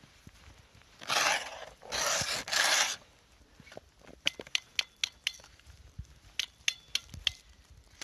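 Snowshoes scraping across snow and lake ice, two long rough scrapes about a second in. Then a run of sharp clicks and taps on the ice, some with a brief ring.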